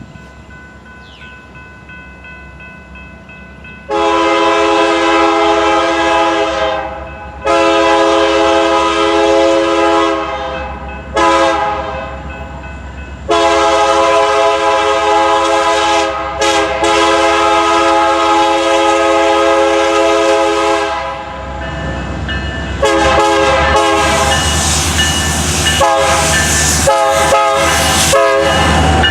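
EMD SD60M diesel locomotive's air horn sounding the grade-crossing signal: two long blasts, a short one and a final long one. After that the train passes close, loud with locomotive and rail noise, the horn sounding in choppy bits.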